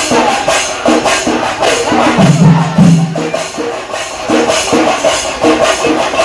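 Percussion music: fast drum strokes with jingling cymbals, and a held low note that comes back every couple of seconds.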